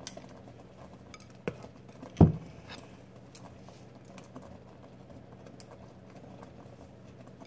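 Scattered light clicks and taps of a metal squeeze-handle scoop as dough is scooped from a glass bowl and released into the pan, with one louder thump a little over two seconds in.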